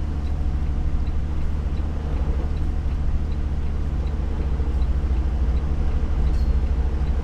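Semi-truck's diesel engine idling steadily, a low drone heard from inside the cab, with faint regular ticking at about three a second.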